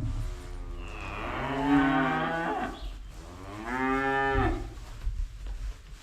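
A dairy calf bawling twice: a long moo of about two and a half seconds, then a shorter one of about a second.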